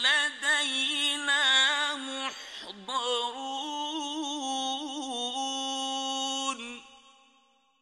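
A man chanting the Quran in the slow, ornamented mujawwad style: long held notes that bend and wind in pitch, with a short break for breath about two and a half seconds in. The last note stops near the end, and its echo fades to silence.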